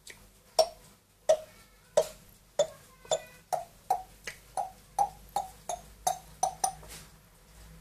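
A pet parrot making a series of hollow popping clicks, about sixteen, starting about one every 0.7 s and speeding up to about three a second before stopping near the end.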